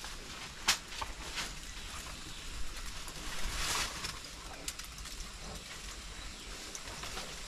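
Rustling and scraping of a climber moving over rock and through shrubs, with a sharp knock about a second in and a louder rustle near the middle, over a steady low rumble of wind on the microphone.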